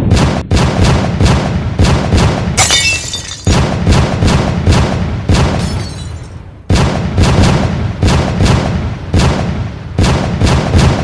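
Gunshot sound effects in rapid succession, about two shots a second, each with a booming tail, with a short noisy crackling burst about three seconds in and a brief lull past the middle.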